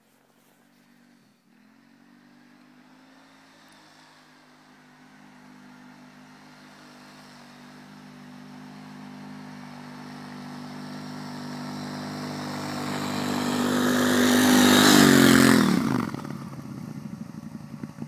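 Arctic Cat Wildcat side-by-side's engine running steadily under load as it ploughs through deep snow, growing louder as it approaches and passes close by about 15 seconds in, then dropping in pitch and fading as it drives away.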